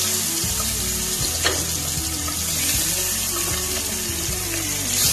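Pabda fish sizzling steadily as they fry in hot mustard oil in a kadai, with more fish being added one at a time. A single sharp tick comes about one and a half seconds in.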